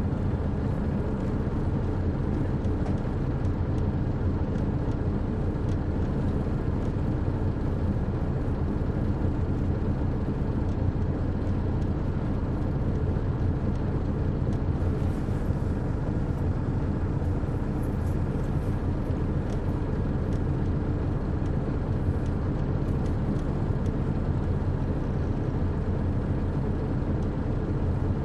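A 2001 MCI D4000 coach's Detroit Diesel Series 60 inline-six diesel running steadily, heard on board from the back of the bus. It makes a low drone whose pitch holds level throughout.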